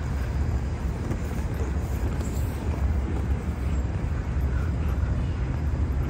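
Outdoor background noise: a steady low rumble with an even hiss above it, with no distinct event standing out.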